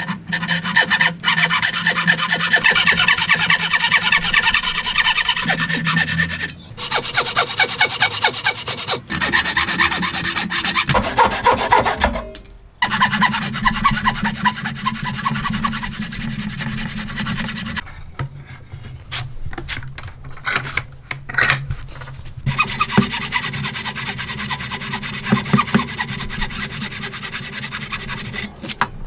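Wooden frame saw with a narrow metal blade cutting a timber post by hand: rapid back-and-forth rasping strokes, with a few short pauses and a quieter stretch about two-thirds of the way through.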